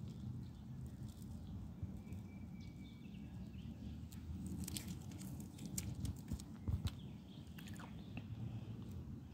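Masking tape being peeled off freshly spray-painted car bodywork: faint crackling and ticking as it lifts, with a short run of sharper clicks about midway, over a steady low rumble.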